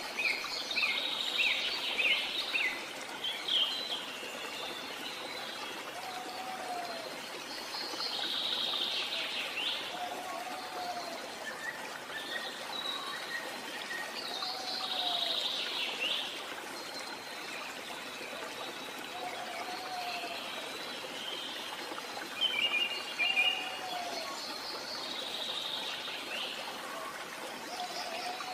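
Several small birds chirping and trilling over a steady background hiss, with a lower two-part call repeating about every four seconds.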